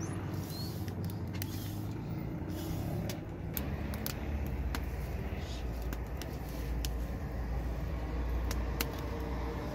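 Wood fire under a stone bread griddle crackling, with scattered sharp pops at irregular intervals over a steady low rumble.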